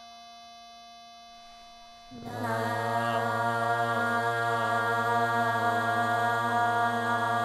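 A steady electronic tuning tone plays from small desktop speakers. About two seconds in, a group of male and female voices comes in singing the same note together as a held unison tone, much louder than the speaker tone.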